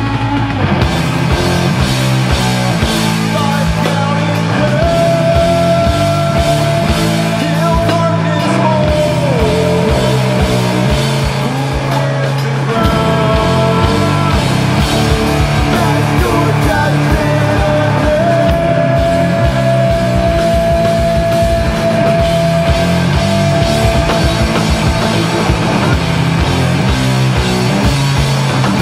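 A heavy rock band plays loud live music: distorted electric guitar, bass guitar and drum kit over a driving riff. Held high lead notes ring out over the riff, sliding down about ten seconds in and returning later.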